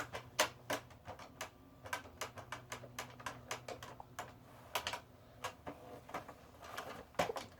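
Irregular run of light clicks from typing on a phone's touchscreen keyboard, a few taps a second.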